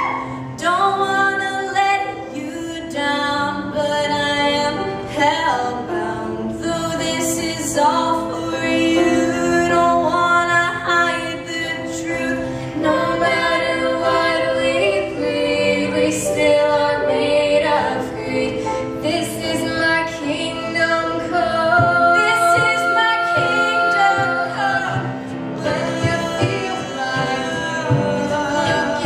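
Two female voices singing in harmony over piano, with beatboxed vocal percussion keeping a steady beat.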